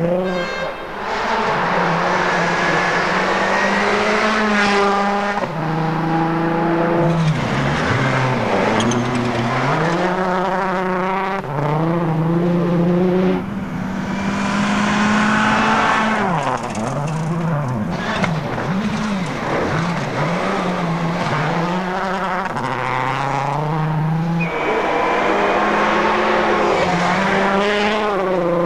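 Mitsubishi Lancer WRC rally cars' turbocharged 2.0-litre four-cylinder engines driven hard on a stage. The pitch climbs and drops back in steps at each gear change, again and again as the cars pass.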